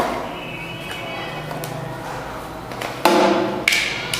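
Plastic clicks and knocks from a toy Uzi being handled as soft foam bullets are loaded, the loudest a knock about three seconds in followed by two sharper clicks. Faint background music runs underneath.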